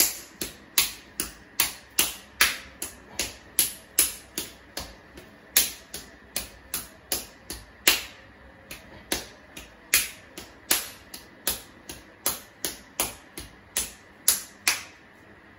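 Fists repeatedly punching a man's bare torso and upper arms, sharp smacks of knuckles on skin at a quick, even pace of about two to three blows a second, stopping shortly before the end.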